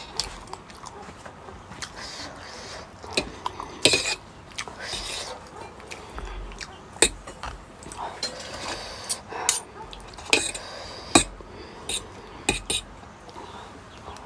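Cutlery clinking and scraping against a plate while eating, in scattered sharp clicks and knocks, the loudest about four seconds in and again about eleven seconds in.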